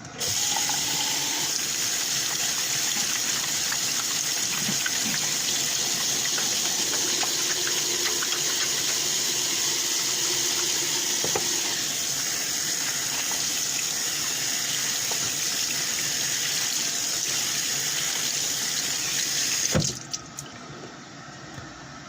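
Water running steadily from a tap, cut off abruptly with a knock about twenty seconds in.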